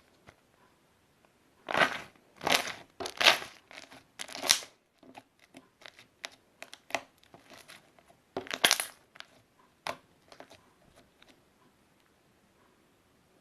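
Slime being squeezed and pressed by hand, giving crunchy crackling bursts: four loud ones in quick succession, then scattered small crackles and pops, and one more loud crunch about two-thirds of the way through.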